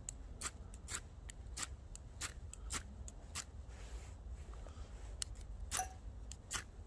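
Repeated sharp clicks of an igniter being struck over and over to light a small alcohol stove, coming irregularly at about two to three a second with a short pause in the middle. The stove is slow to catch.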